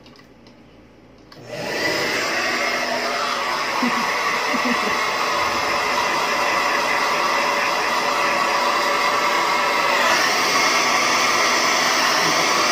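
Handheld hair dryer switched on about a second and a half in, then running steadily as it dries wet hair.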